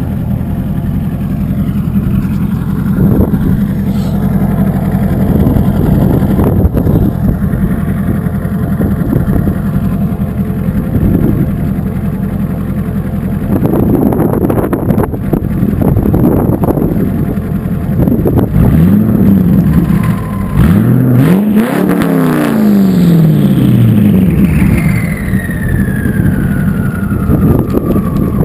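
Twin-turbo C5 Corvette V8 idling through straight pipes with no mufflers or cats, blipped several times; about two-thirds through it revs up and drops back a few times in quick succession. Near the end a high turbo whine falls in pitch as the engine settles back to idle.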